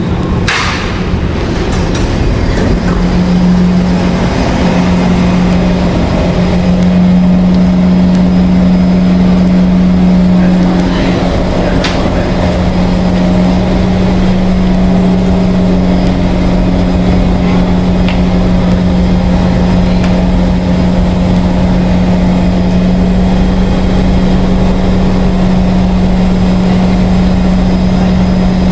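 Kawasaki C151 metro train standing with its doors open, its onboard equipment giving a loud, steady hum on one low tone, with a few sharp clicks along the way.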